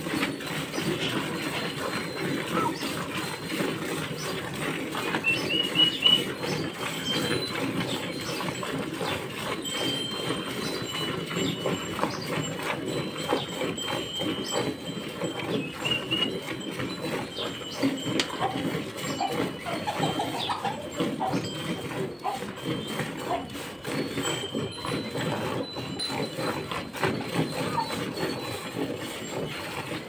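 Cow being milked by hand: jets of milk squirting in quick succession into a metal pail already part-filled with foamy milk.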